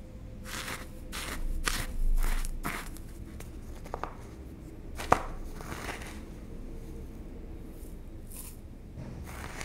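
Metal spoon scooping dry yerba mate from a plastic tub and tipping it into a mate gourd: a run of dry crunchy scrapes and rustles, quick strokes at first, with one sharp click about five seconds in.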